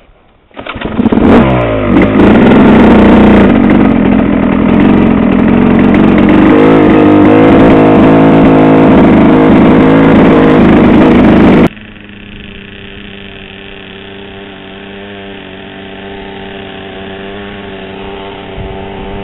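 Motorcycle engine comes in about half a second in with quick revs, then runs loud and steady under way. About twelve seconds in it drops abruptly to a much quieter, steady running note.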